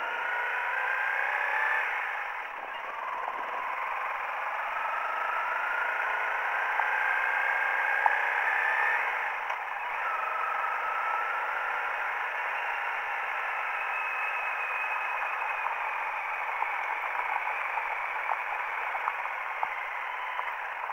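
Honda CRF 250L's single-cylinder four-stroke engine pulling along a dirt track. Its pitch climbs as the bike gathers speed and drops back at gear changes about two seconds in and again near the middle, with a thin, tinny tone and a constant wind and tyre rush.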